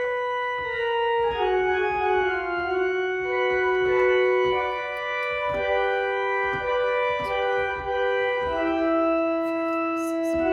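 Organ-like keyboard accompaniment playing held chords under a slowly moving melody line, with the notes changing every second or two.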